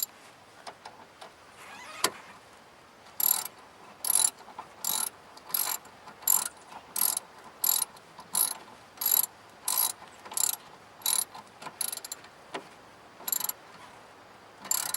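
Hand ratchet tightening the negative battery terminal clamp nut: a sharp click, then a run of about fourteen short ratcheting bursts in a steady back-and-forth rhythm, one every 0.7 seconds or so.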